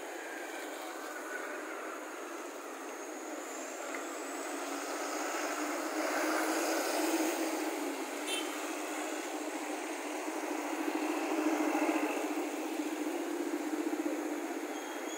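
Road traffic passing: motorbikes and cars running by on the road, a steady wash of engine and tyre noise that grows louder twice.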